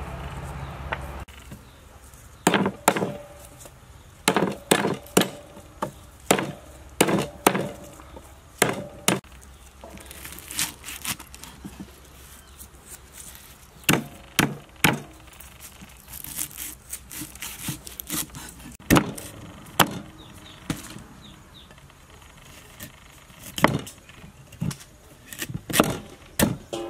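Cleaver chopping on a wooden chopping board: irregular sharp chops, some single and some in quick runs, cutting lemongrass stalks and a fibrous root.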